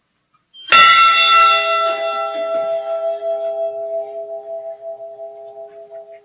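Ship's bell struck once, then ringing and slowly dying away. Its higher tones fade within a few seconds while two lower tones hum on. It is a single memorial toll for one crew member named in a roll call of the dead.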